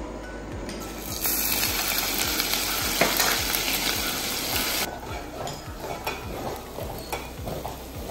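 Crushed ginger hitting hot sesame oil in a metal pot: a loud sizzle starts about a second in and eases off after about five seconds. A slotted spoon then stirs and scrapes through the frying ginger.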